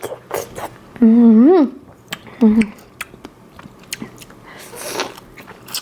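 A woman biting into and chewing large, juicy strawberries close to the microphone: wet bites and a run of sharp mouth clicks. There is a short vocal sound about a second in and another around two and a half seconds.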